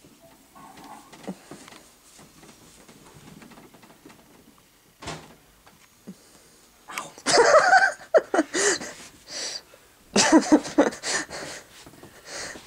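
A cat hissing and growling in two loud outbursts, about seven and ten seconds in, as hands pester it.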